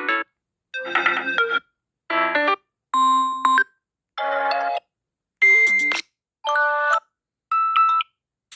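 Phone notification tones previewed one after another in a tone picker, each a different short chime or jingle. About eight play in a row, each cut off and followed by a brief silence before the next.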